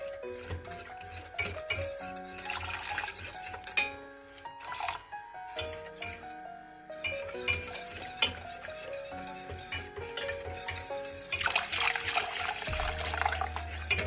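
Background music, with kitchen utensils clinking and scraping against a bowl or pot as food is stirred and handled.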